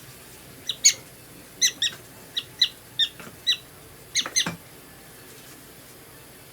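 Prairie dog calling: a series of about ten short, high chirps in quick succession, some in pairs, stopping about four and a half seconds in.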